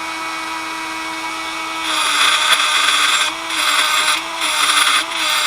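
Small high-speed rotary tool running freely with a steady whine, then about two seconds in it starts grinding metal in repeated bursts, its pitch dipping each time it bites.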